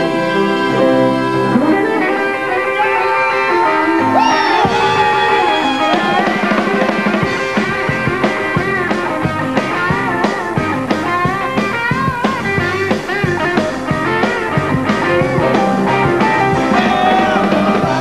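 Live band music: held chords from cello and Renaissance wind instruments, then a rock band with electric guitar and drum kit takes over. A steady rock beat runs from about six seconds in.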